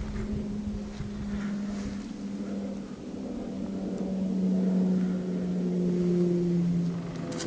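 Vintage snowmobile engine running steadily, its pitch sinking slowly.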